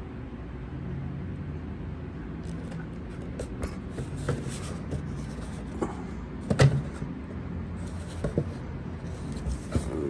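Cardboard smoke-alarm box being handled and turned over in the hands, giving scattered light taps and clicks, the loudest about two-thirds of the way through. A room fan hums steadily underneath.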